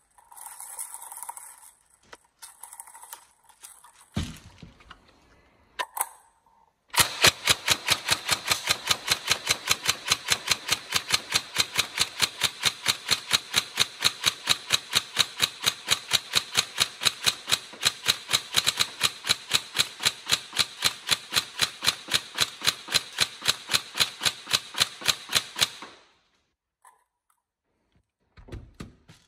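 Upgraded Tokyo Marui 416 NGRS airsoft electric rifle, with a Warhead high-speed motor, firing one long full-auto string of about twenty seconds: a rapid, even rattle that cuts off suddenly. A couple of single knocks come a few seconds before the burst.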